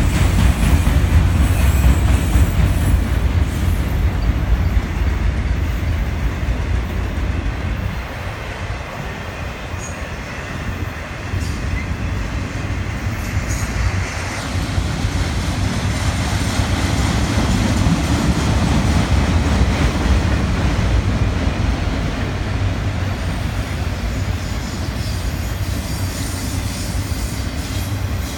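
CSX freight train of enclosed autorack cars rolling past close by: a steady, loud rumble of steel wheels on the rails. It eases slightly about eight seconds in and builds back a few seconds later.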